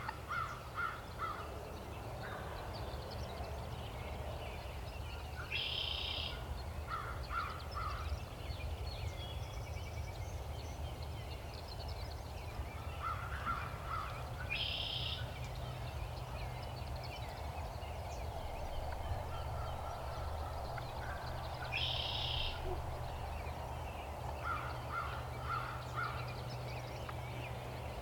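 Birds calling: runs of four or five short notes recur every few seconds, and a short high-pitched phrase comes back about every eight seconds, over a steady low rumble.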